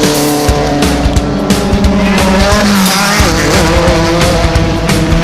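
Loud rock-style music: a steady drumbeat under held, distorted chords that change every second or two.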